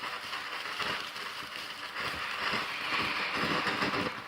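Cheap firework fountain spraying sparks: a steady hiss full of fine crackling, getting stronger about two seconds in and falling off right at the end.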